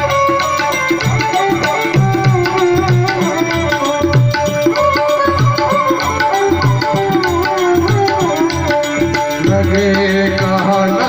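Indian music with tabla playing a rhythm under a steady held tone and a wavering melody line.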